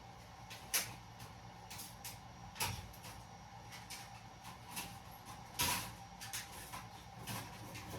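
Irregular knocks and clatters of things being moved and handled while rummaging for a stack of circuit boards, the loudest about a second in, near the three-second mark and just past halfway, over a steady hum.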